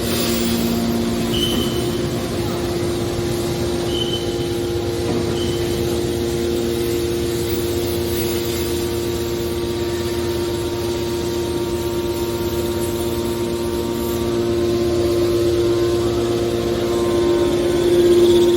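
Hydraulic scrap metal baler running: a steady hum from its pump and motor with several constant pitches, growing a little louder toward the end. Three short high squeaks come in the first six seconds.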